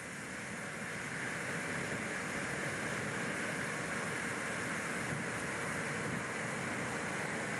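Steady rushing wind noise, swelling a little in the first second and then holding level.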